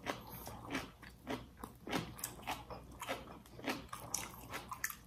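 Close-up eating sounds: chewing and biting, with irregular crunches and mouth clicks several times a second, from crisp bok choy being eaten.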